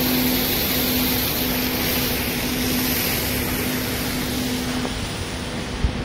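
Steady ship's machinery noise during a bilge suction test, with a low hum that fades away about five seconds in. A short dull knock comes near the end.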